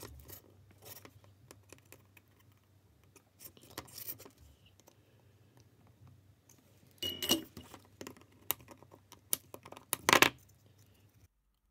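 Small clicks, taps and paper rustling from handling a circuit board and its through-hole transistors on a paper-covered workbench during soldering, over a low steady hum. Louder bunches of sharp clicks come about seven and about ten seconds in.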